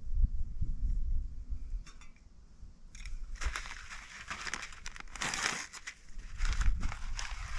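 Packaging crinkling as it is handled, in several bursts from about three seconds in.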